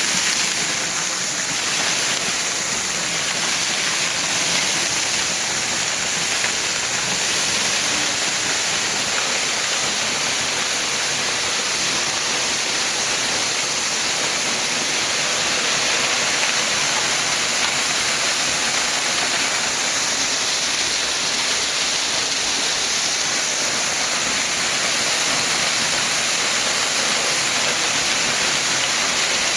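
Waterfall crashing steadily, a constant loud rush of falling water heard from close by, from behind the falling water.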